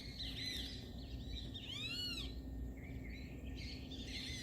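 Morning birds chirping, many short repeated calls, with one louder arching call about two seconds in, over a faint steady background hum.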